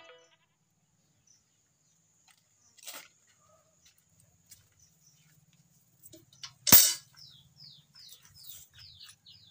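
A steel milk pail set down on the ground with one sharp knock, the loudest sound, about two-thirds of the way in; a smaller knock comes earlier. After it, a small bird calls in quick, short falling chirps, about three a second.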